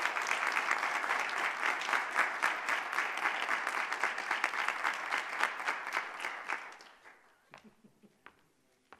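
Audience applauding in a hall, fading out about two-thirds of the way through, followed by a few faint knocks.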